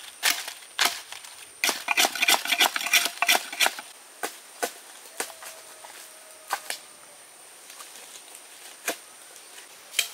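A kitchen knife chopping on a wooden board: a run of sharp, irregular knocks, densest from about one and a half to four seconds in, then single strokes spaced out. The knife is a poor one that makes the chopping hard going.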